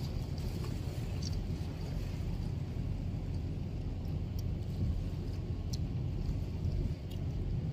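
A steady low rumble with faint high ticks here and there.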